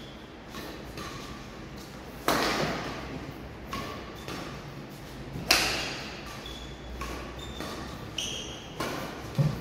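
Badminton racket strings hitting a shuttlecock during a rally: two loud sharp hits about three seconds apart, each echoing through a large hall, with lighter hits from the far end in between. Brief squeaks of shoes on the court mat come between the shots.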